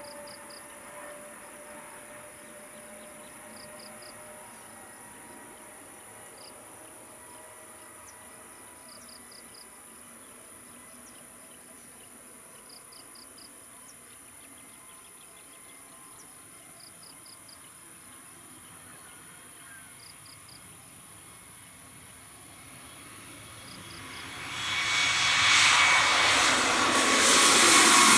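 Jet airliner's engines at takeoff power, faint and distant for most of the stretch. Near the end the sound swells quickly to loud as the plane passes close, its tones sliding down in pitch.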